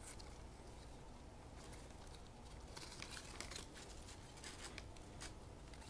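Faint, irregular rustles and light clicks of paper trading cards sliding over one another as a stack is flipped through by hand.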